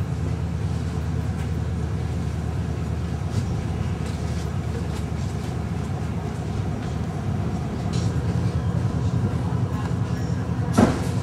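A commuter train running, heard from inside the carriage: a steady low rumble with a few faint clicks. A sharp, loud knock comes near the end.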